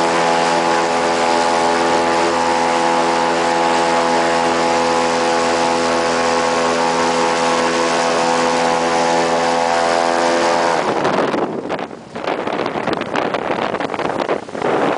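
Airboat engine and propeller running steadily at speed. About eleven seconds in the engine sound falls away and stops, leaving gusty wind buffeting the microphone.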